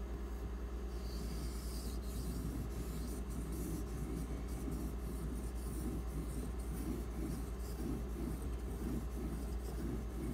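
Knife blade stroked back and forth on a wet 6000-grit Imanishi waterstone: a rhythmic rubbing scrape, about two strokes a second, starting about a second in, over a steady low hum.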